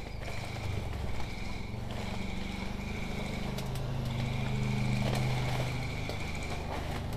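Footsteps and leaves rustling as someone pushes through dense undergrowth. Beneath them run a steady low hum that swells in the middle and a thin high whine that comes and goes.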